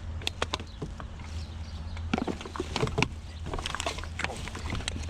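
Clicks, knocks and light rattles of curbside junk being picked through and handled by hand, with a cluster of louder knocks about two to three seconds in, over a steady low hum.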